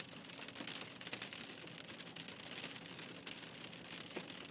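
Rain pattering on a car's roof and windshield, heard from inside the car as a steady hiss dotted with many small drop ticks.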